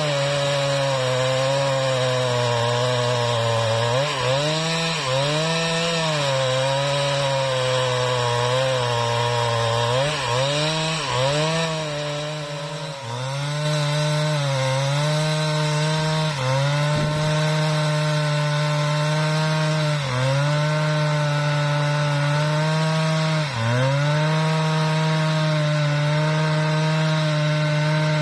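Husqvarna 395XP two-stroke chainsaw running at full throttle while ripping lengthwise through a mahogany log. The engine pitch dips briefly under load several times and recovers.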